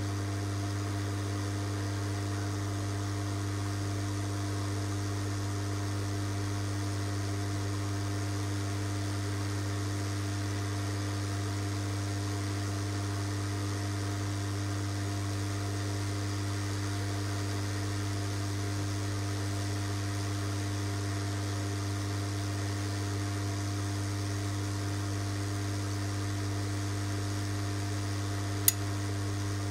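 Steady electrical hum with a faint hiss, unchanging throughout, and a single sharp click about a second before the end.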